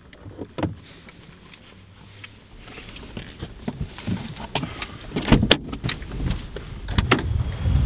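A Renault car's door and fittings as people get out: a few small clicks, then from about a third of the way in, a building run of latch clicks, knocks and rustling. The loudest knocks come a little past halfway and again near the end.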